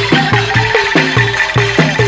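Sundanese calung band playing a fast dance tune: quick, steady drum strokes, some sliding in pitch, with struck bamboo tones and a shaken rattle.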